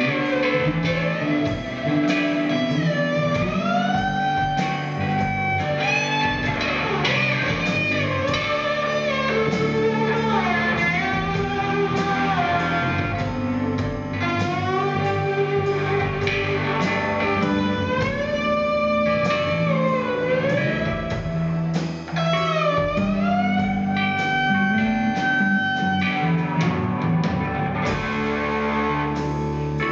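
A rock band plays live: electric guitars, drums and keyboard together, with a lead line whose held notes bend and slide up and down in pitch over steady drum hits.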